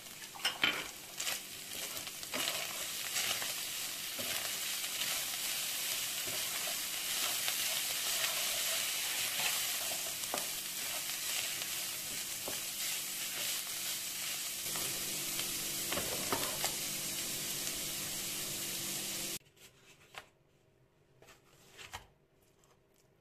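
Minced beef and onion sizzling in a frying pan, stirred and scraped with a wooden spatula, with scattered clicks over a steady hiss. The sizzle stops suddenly near the end, leaving a quiet room with a few faint knocks.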